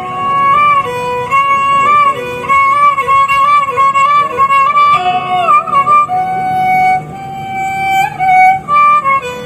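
Tarawangsa, the Sundanese bowed fiddle, playing a melody that slides and wavers in pitch.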